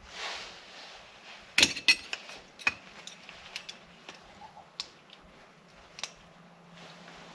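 Steel parts of a limited-slip differential carrier clinking and clicking as they are handled and its clutch-pack pieces are taken out. Two sharp metal clinks come close together about a second and a half in, with lighter taps scattered after, and a short rustle at the very start.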